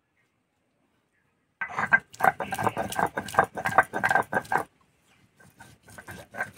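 Stone muller rubbed and rocked back and forth on a flat stone grinding slab (shil-nora), grinding whole spices, garlic, ginger and green chillies into a wet paste: a rapid run of gritty scrapes and knocks. It starts after about a second and a half of silence, stops briefly near the two-thirds mark, then resumes more faintly.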